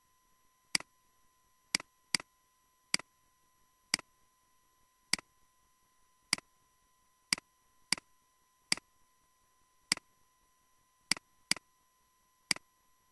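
Computer mouse clicking: about fourteen sharp single clicks at uneven intervals of roughly a second, a few in quick pairs. A faint steady high tone runs underneath.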